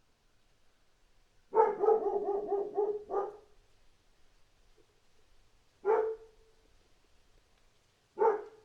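A dog barking: a quick run of barks about a second and a half in, then single barks twice more, the last near the end.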